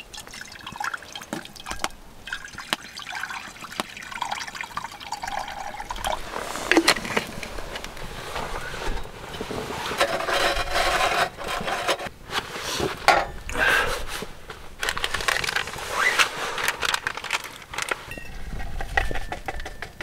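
Water poured from a bottle into a pan over a small wood fire, followed by rustling and knocking of camping gear being handled, with sharp crackles scattered throughout.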